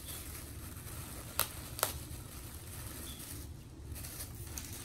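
Two sharp clicks, a little under half a second apart, over a steady low hum of room noise.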